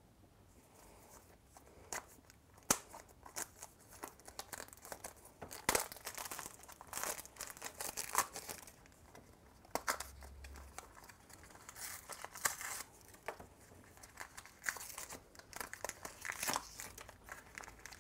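Clear plastic shrink-wrap crinkling and tearing as it is peeled off a small hard-plastic Shopkins blind basket, with irregular crackles and a few sharp snaps, the loudest about three and six seconds in. Toward the end a foil-plastic blind bag inside crinkles as it is handled.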